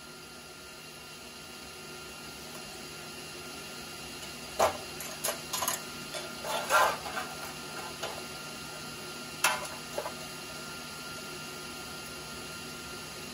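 A handful of sharp metallic clinks and clanks from steel clamps and locking pliers being handled on a sheet-steel radiator support, starting about four seconds in with a short cluster in the middle, over a steady low shop hum.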